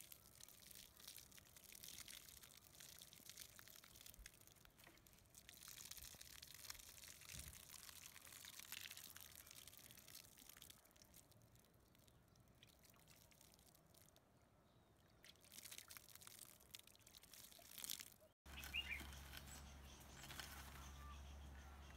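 Faint trickle and patter of water poured from a watering can onto loose soil. About 18 seconds in, the sound cuts to a steady low hum with a few short bird chirps.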